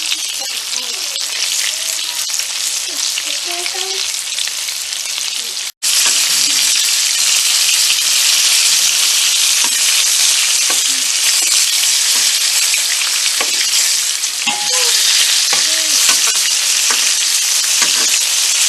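Coated chicken pieces frying in hot oil, a steady loud sizzle. There is a brief cut to silence about six seconds in, and the sizzle is louder after it.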